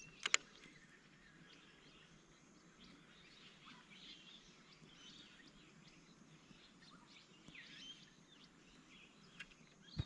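Faint, scattered bird calls over near quiet, with one sharp click just after the start.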